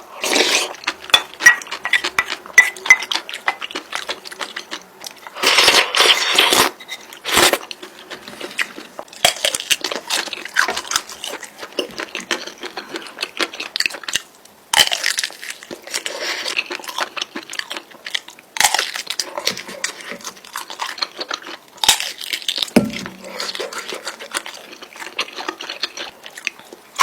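Close-miked eating sounds: spicy instant noodles being eaten, with chewing and irregular clicks of utensils against the dish.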